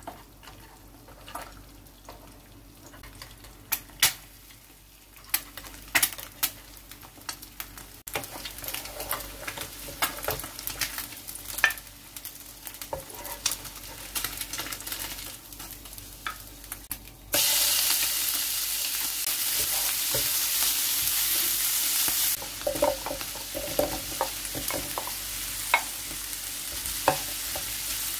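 Food frying in oil in a nonstick frying pan, a spatula tapping and scraping the pan now and then. First eggs are frying, quietly at first and then with a light sizzle. About 17 seconds in, a much louder sizzle starts suddenly, which fits diced chicken and eggplant going into the hot oil, and a wooden spatula stirs them.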